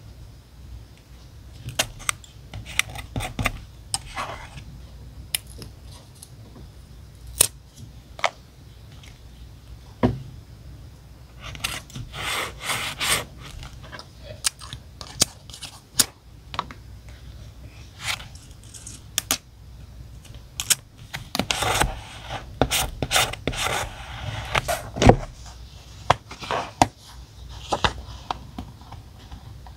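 Diary-decorating handwork with paper materials: scattered small taps and clicks, with two longer spells of paper rustling and scraping, about a third of the way in and again about two-thirds through.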